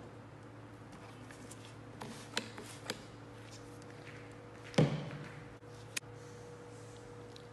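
A trigger spray bottle squirting a few short bursts onto a cardboard box. About five seconds in comes a solid thump, the loudest sound, as something is set down on the wooden table, and a sharp click follows a second later.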